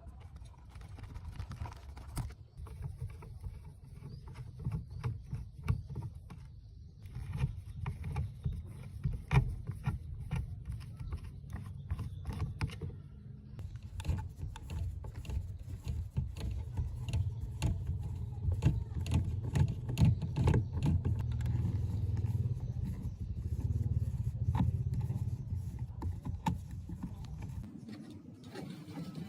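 Clicks and knocks of tools and hands taking apart an old electronic device, over a steady low rumble that grows louder in the second half and stops near the end.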